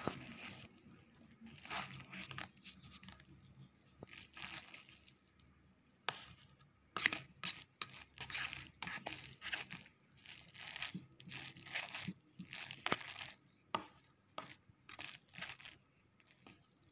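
Metal fork stirring sauce-coated instant ramen noodles in a paper cup: repeated wet swishing and squelching strokes with small clicks of the fork against the cup. The strokes come more often and louder about halfway through.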